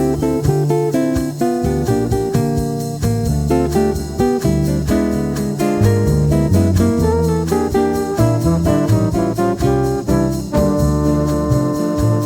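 Background music led by a plucked guitar over a steady beat and bass line, with sustained keyboard chords coming in near the end.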